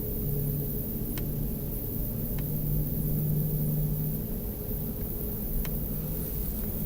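A low, steady droning hum of unknown origin, swelling from about half a second in to about four seconds and then fading back, over a low rumble. It is the weird noise the uploader likens to a ram's horn trumpet. A few faint clicks sound during it.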